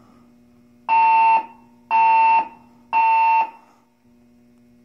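Building fire alarm sounding its evacuation tone: three half-second beeps about a second apart, then a longer pause. This is the temporal-three pattern that signals everyone to evacuate. A faint steady hum lies underneath.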